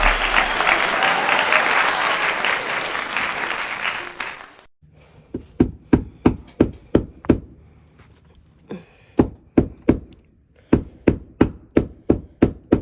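Brass-led music that cuts off abruptly, followed by runs of sharp knocks, about three a second, in three bursts with short pauses between them.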